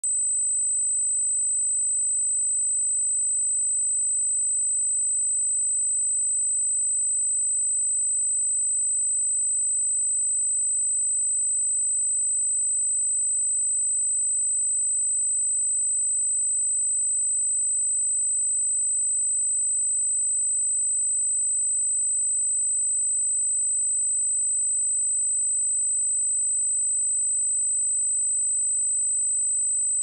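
A pure 8075 Hz sine-wave test tone: one steady, high-pitched whistle held at constant pitch and level, used to check speakers or headphones.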